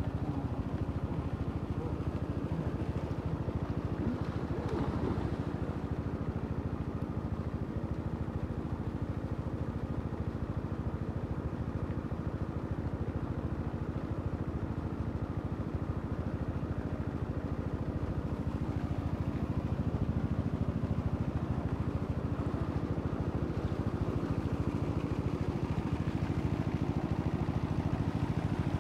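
A water pump's engine running steadily with an unchanging low hum, while its discharge pours into the pond in a steady splash.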